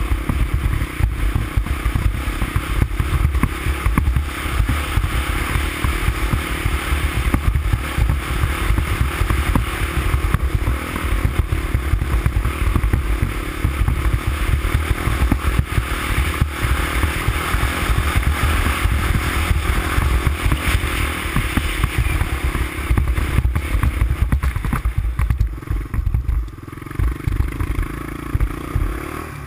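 350X ATV's engine running steadily under way as the machine rides along, easing off briefly a few seconds before the end.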